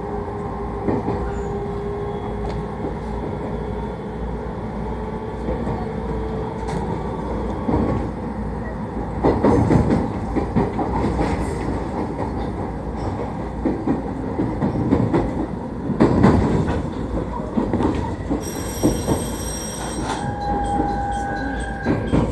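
A train running slowly over curved track as it reverses through a switchback, heard from inside the car: a steady running rumble with louder clatter over rail joints and points about ten and sixteen seconds in. Near the end the wheels give squealing tones.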